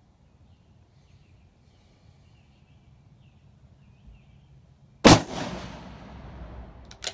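A single shot from a Savage 110E bolt-action rifle in .270 Winchester about five seconds in: one sharp, loud crack followed by an echo that rolls away over about two seconds.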